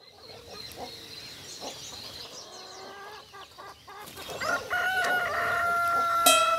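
Small birds chirping, then a rooster crows: one long, loud crow starting about halfway through and held almost to the end.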